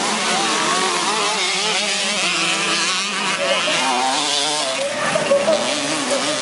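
Several motocross dirt bike engines racing, their pitch rising and falling as the riders rev through the turns.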